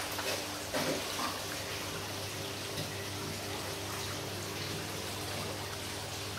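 Saltwater aquarium's pump and filter running: a steady electrical hum under a constant water trickle. A brief splash about a second in, as a fish is tipped from its bag into the tank.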